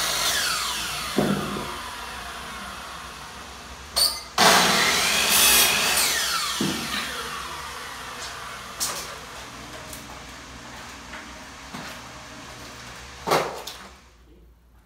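Electric miter saw: the blade's whine falls away as it spins down after a cut, then about four seconds in a second cut starts and spins down the same way. A brief sharp burst of noise comes near the end.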